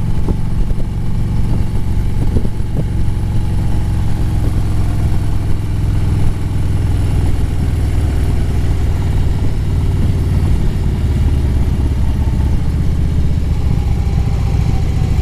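Harley-Davidson Road Glide's V-twin engine running steadily at cruising speed, with the pitch shifting a little as the throttle changes.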